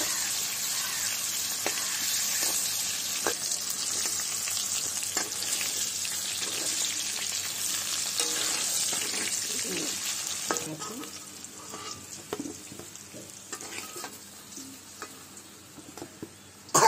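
Potato chunks frying in hot oil in a steel kadai, a steady sizzle with a metal spatula stirring and scraping against the pan. About ten seconds in the sizzle dies down, leaving quieter scattered taps and scrapes of the spatula.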